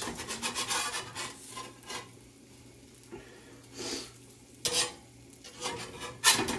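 Metal spatula scraping against a cast iron skillet as it is worked under a pancake: a quick run of scrapes at the start, then a few separate sharper scrapes, the loudest near the end.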